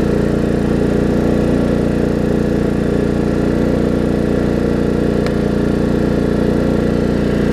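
Craftsman LT1750 riding mower engine running steadily, with one short click a little over five seconds in.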